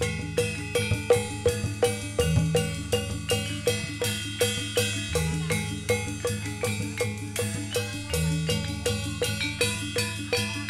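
Jathilan dance accompaniment music: struck gamelan-style metal keys and drums in a steady, fast beat of about three to four strokes a second, over a deep sustained low note that shifts every few seconds.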